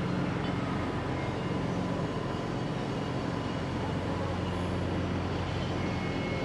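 Steady low mechanical drone with a few faint held tones, unchanging throughout.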